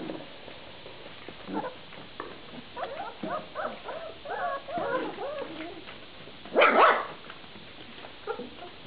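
Young Vizsla puppies yipping and whining: a quick run of short, high squeaky calls, then one louder bark about seven seconds in.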